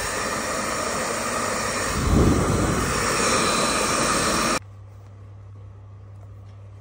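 Blow dryer running with a steady rush of air, with a brief louder gust about two seconds in; it cuts off suddenly after about four and a half seconds, leaving a faint low hum.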